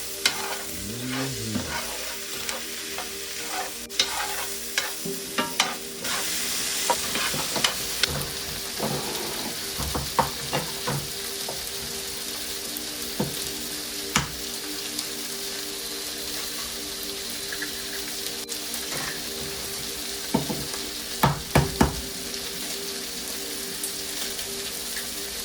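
Chopped sausage and vegetables frying in a pan, a steady sizzle, with the clack and scrape of a utensil stirring them every few seconds, most clearly about three quarters of the way through.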